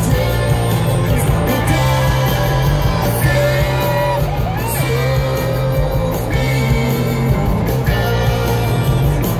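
Live rock band playing loudly, with electric guitar, bass and drums under a male lead vocal holding long, wavering notes.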